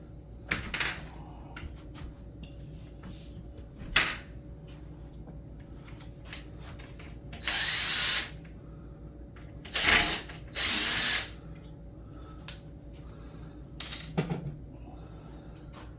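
Cordless drill-driver running in two short bursts, with clicks and knocks from handling the tool and door hardware between them.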